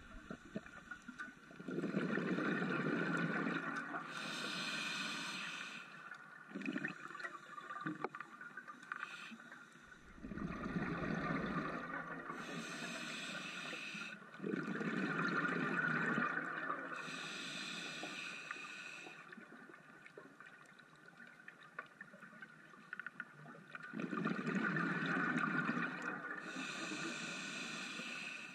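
Scuba diver breathing through a regulator underwater, about four slow breaths. Each is a rumble of exhaled bubbles followed by the hiss of the demand valve on the inhale.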